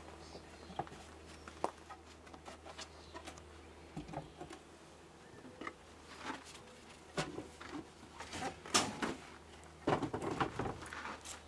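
Scattered light knocks and scrapes of wooden beehive frames and boxes being handled, bunched in a few clusters over a faint steady low hum.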